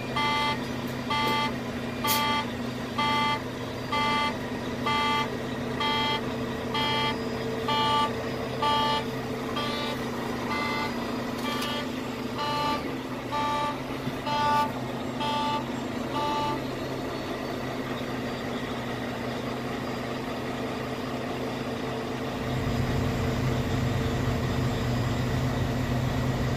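Low-brake-air-pressure warning beeping in a Volvo VNL 860 truck cab, about one beep a second, over the truck's diesel engine idling after a start. The beeping stops about two-thirds of the way through, as the air system builds pressure, and the engine gets louder near the end.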